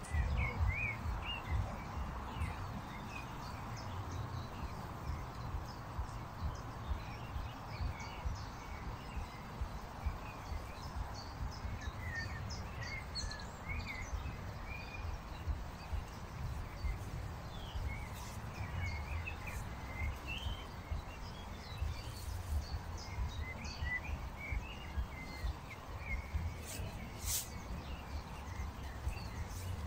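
Small birds chirping and singing over a steady low outdoor rumble, with a few faint clicks in the second half.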